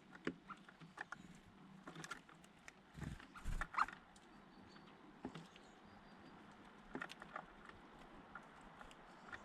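Birds pecking and scuffling at close range: scattered light taps and clicks, with a louder bump about three seconds in.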